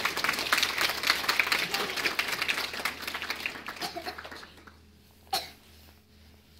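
Applause from a small crowd, children among those clapping, dying away about four and a half seconds in. A single sharp knock follows about a second later.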